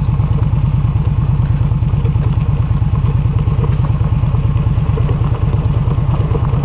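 Cruiser motorcycle engine running steadily at a slow, even beat as the bike rolls down a loose gravel road, with a few faint clicks of stones under the tyres.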